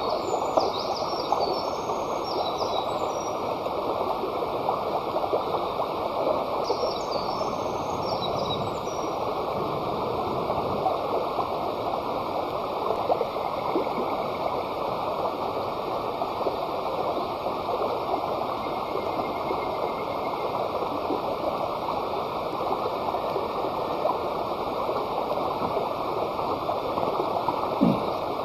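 Steady rush of flowing water from a stream.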